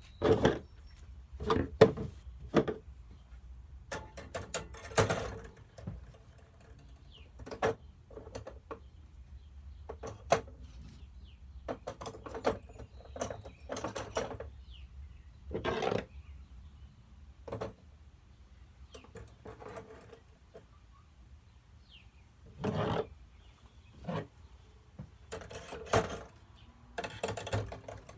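TAT LeMans 48-inch ceiling fan coasting down after being switched off: a faint low hum with irregular, unevenly spaced clicks and knocks.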